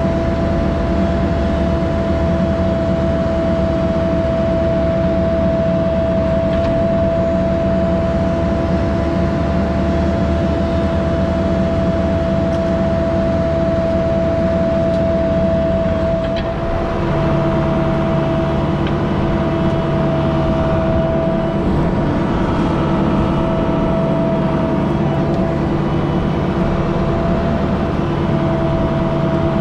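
Diesel engine of a compact excavator or skid steer running steadily, with a constant high whine over the engine note; the engine's low hum shifts to a different pitch about halfway through.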